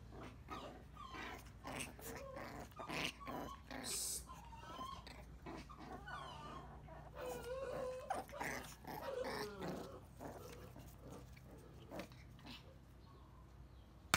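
Two puppies play-fighting: short growls, whines and yips over small clicks and scuffles of paws on a tile floor, dying down about ten seconds in.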